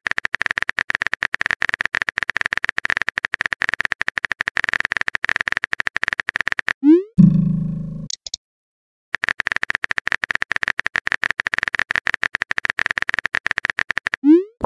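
Rapid, even clicking of a phone-keyboard typing sound effect. About seven seconds in it stops with a short rising pop as a chat message is sent; after a brief pause the typing clicks start again and end with another rising pop near the end.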